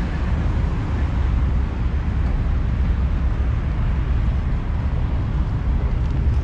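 Steady rumble of road traffic, a continuous low noise with no distinct events.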